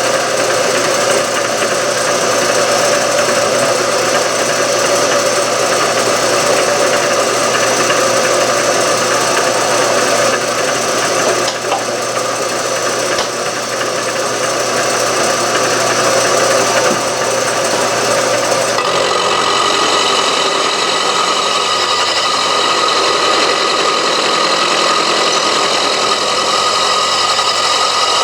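Milling machine running, its cutter milling cast iron bosses out of a small engine's base with the power feed driving the table: a loud, steady machining din with several held tones. About two-thirds of the way through the pitch of the running changes abruptly.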